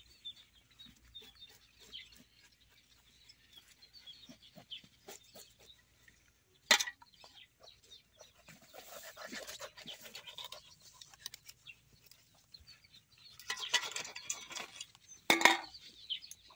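Chickens clucking, with the scraping and small clicks of a knife scaling fish in a metal basin. Two sharp knocks, about seven seconds in and near the end, are the loudest sounds.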